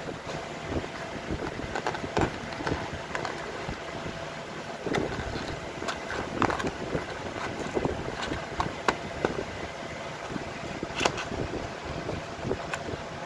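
Cardboard phone box and inner packaging handled by hand: irregular taps, knocks and scrapes over a steady background noise.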